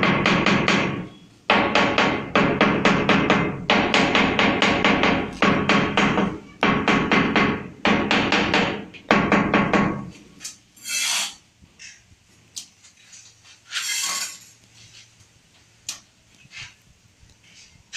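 Rapid tapping on a ceramic wall tile to bed it into the mortar, in a run of bursts a second or two long with short breaks between. Partway through the tapping stops, and only a few scattered clicks and scrapes follow.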